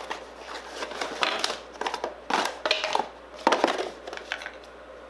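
Crinkling and rustling of plastic sleeves and cardboard packaging being handled, in several irregular bursts.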